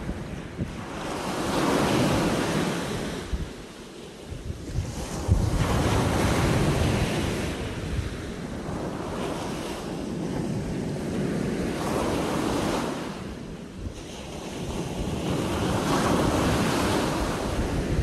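Surf breaking on a beach, with four swells of rushing water, one every four to five seconds. Wind buffets the microphone underneath.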